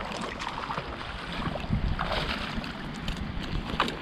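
Water splashing in the shallows as a hooked shad thrashes at the surface on the line, in short irregular bursts.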